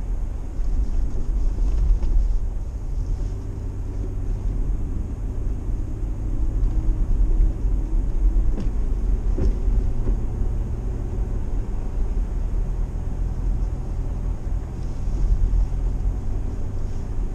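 A car on the move: steady engine drone and road rumble, with the engine note shifting up and down as it goes, and a couple of light knocks about halfway through.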